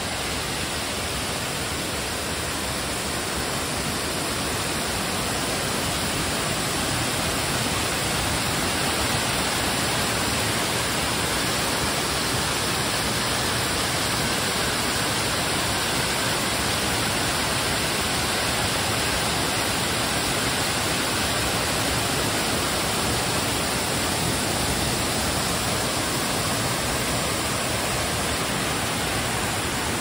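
Waterfall pouring, a steady rush of falling water that grows slightly louder in the first few seconds and then holds even.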